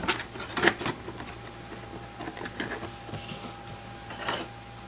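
Scattered light clicks and rustles from handling small objects, over a faint steady high-pitched tone that starts about a second in.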